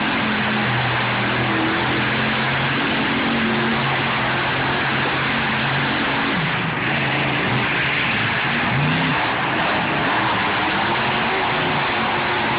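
Monster truck engines running hard during a freestyle run, the engine note held steady at first, then revving up and down several times from about six seconds in, over a loud continuous din.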